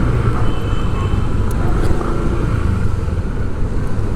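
Steady city road traffic: a continuous low rumble of passing vehicles' engines and tyres.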